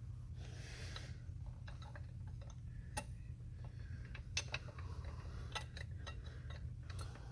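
Light metallic clicks and ticks of motorcycle rear brake caliper parts being worked into place by hand, scattered and irregular, over a steady low hum.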